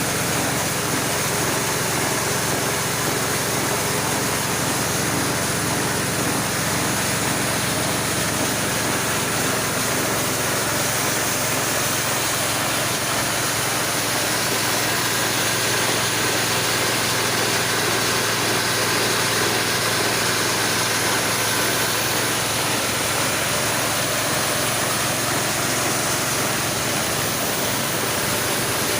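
Homemade corn-grinding machine running steadily: a constant engine hum under a dense, even noise that does not change.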